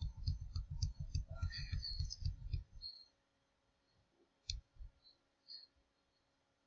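Computer mouse scroll wheel clicking rapidly, about eight ticks a second, for roughly three seconds, then a single sharper click about a second and a half later.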